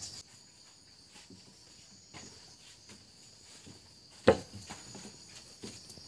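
Steady high insect chorus, with scattered footfalls and knocks on wooden steps and boards and one sharp, loud knock about four seconds in.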